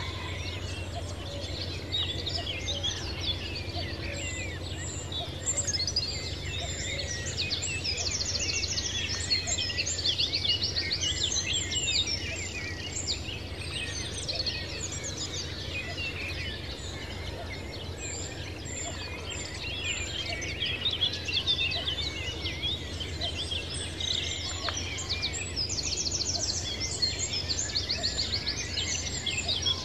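Dense chorus of many birds chirping and calling together, with rapid high trills about eight seconds in and again near the end, over a steady low hum.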